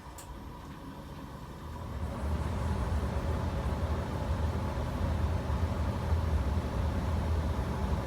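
Multi-stage furnace blower running at full speed: a steady rush of air over a low rumble. It grows louder about two seconds in and then holds, with a single light tick right at the start.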